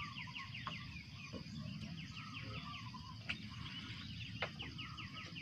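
Birds calling, with a rapid run of short, falling notes at the start and another from about four seconds in.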